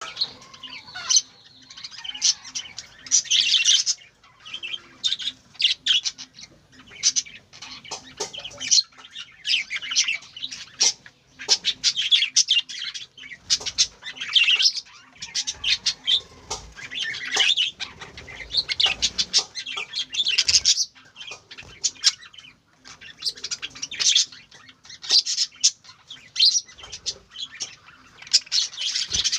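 Budgerigars chattering and chirping continuously, a dense mix of warbles and short squawks, with wing flapping among them.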